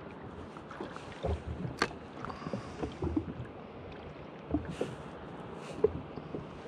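Small waves lapping against the hull of a drifting jet ski, engine off, with scattered light knocks and one sharp click about two seconds in.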